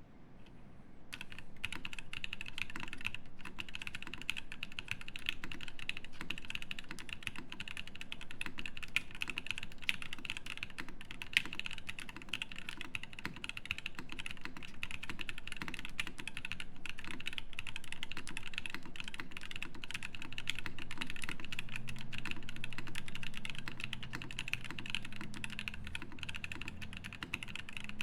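Continuous fast typing on a Keycult No.2/65 mechanical keyboard with lubed and filmed Husky switches, an aluminum plate and GMK keycaps: a dense, even stream of keystrokes that starts about a second in.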